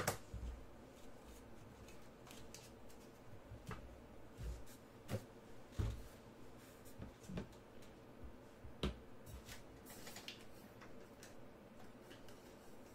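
Trading cards being handled on a table: scattered light taps and clicks as cards and holders are picked up and set down, with a sharp click at the start and a short sliding scrape about ten seconds in.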